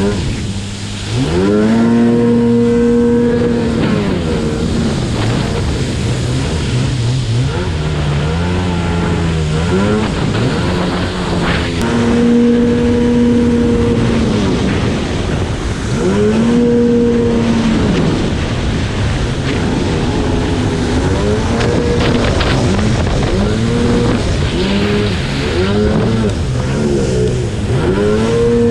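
Yamaha GP800R WaveRunner's two-stroke twin engine under way, revving up and down as the throttle is worked on and off. It has a few long pulls held at high revs, then a quick run of short throttle blips near the end.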